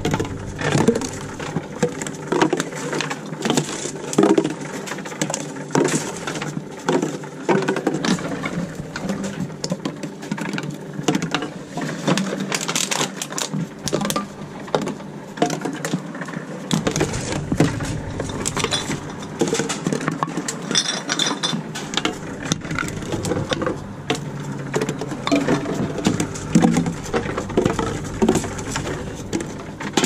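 Plastic drink bottles crackling and knocking as they are handled and fed one after another into a reverse vending machine, with a steady machine hum underneath.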